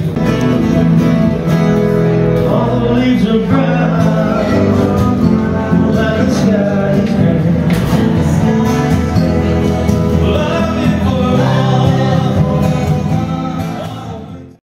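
A man singing live while playing acoustic guitar. The song fades out near the end.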